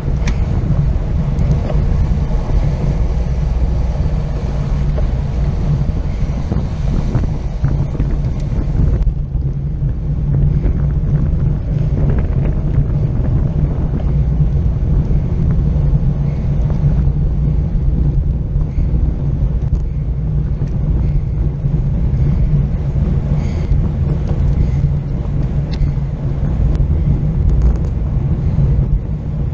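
Wind buffeting the microphone of a racing cyclist's action camera at speed: a steady, loud low rumble. The hiss above it thins out about nine seconds in.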